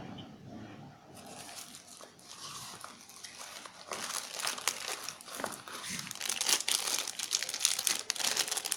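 Clear plastic bag holding a USB cable being handled, crinkling and crackling, louder from about four seconds in.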